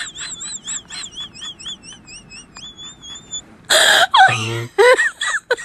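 A high warbling tone over soft rhythmic ticks, then a loud rush of noise about three and a half seconds in as a mountain bike crashes into loose dirt, followed by repeated bursts of laughter.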